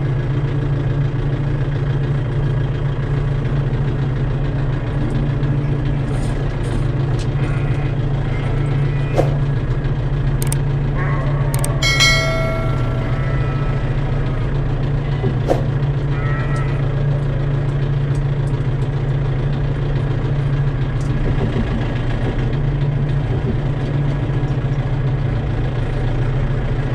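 Tractor engine running steadily at an even speed, with a few sharp clicks and one short metallic clank that rings briefly about halfway through.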